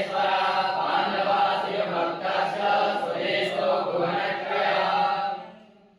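Group of gurukul students chanting a mantra together in unison, the chant fading out near the end.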